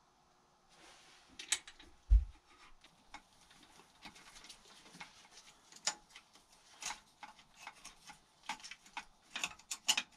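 Hand tools and metal parts clicking and clinking irregularly against a Yamaha Moto 4 YFM225 ATV engine being worked on around its timing chain tensioner, with one dull thump about two seconds in and a quicker run of clicks near the end.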